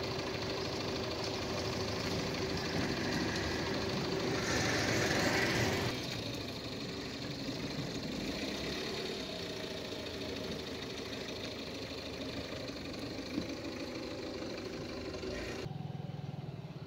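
An engine running steadily, with a louder rushing noise for about a second and a half around five seconds in. Near the end the sound changes abruptly to a lower, steady hum.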